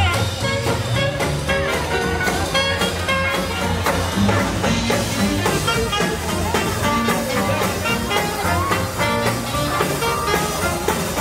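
Swing music with a steady beat, played by a small jazz combo with drum kit, upright bass and guitar.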